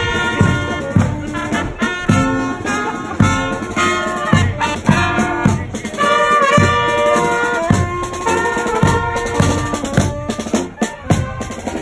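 Marching brass band playing a march, saxophones and trumpets over tuba and snare drum, with a steady beat.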